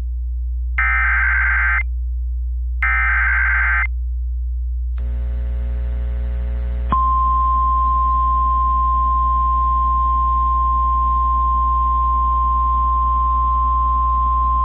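NOAA Weather Radio SAME alert header: two one-second bursts of warbling data tones a second apart, encoding a flash flood warning. After a short stretch of faint radio hiss, the weather radio warning alarm tone starts about seven seconds in and holds as one steady high tone, signalling that a warning broadcast follows. A steady low hum runs underneath.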